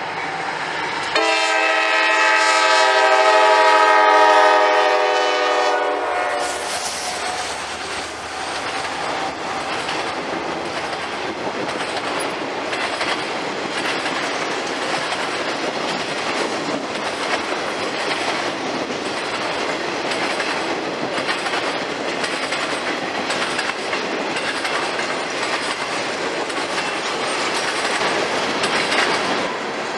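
CSX freight locomotive sounding a long horn blast of about five seconds, several notes at once, the loudest sound here. Then the freight cars roll past with a steady rumble and a rhythmic clickety-clack of wheels over the rail joints.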